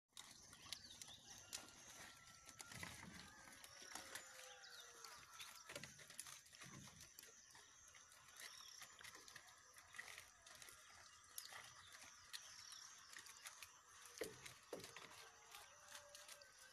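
Goats eating cabbage: faint, frequent crunching and snapping of leaves as they bite and chew.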